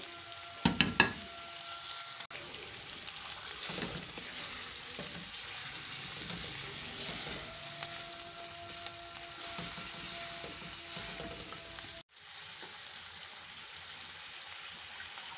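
Chicken pieces sizzling in hot ghee in a metal karahi while a spatula stirs them through ground spices. A few sharp knocks of the utensil against the pan come about a second in.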